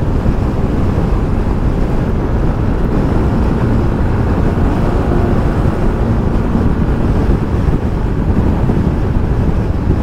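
Wind rushing over the microphone of a scooter ridden at highway speed: a loud, steady, low rumble, with no clear engine note standing out.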